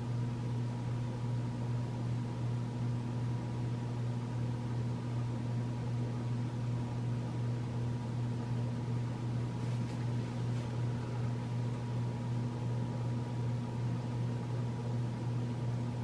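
1993 Casablanca Delta II ceiling fan running with a steady low electrical hum and buzz. The fan is on a solid-state speed control turned all the way down with its pull chain on medium, a setting at which this fan buzzes more.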